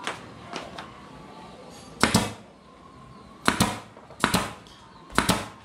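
Pneumatic nail gun firing nails into a wooden frame: four sharp shots, one about two seconds in and three more roughly a second apart near the end, with a few lighter clicks early on.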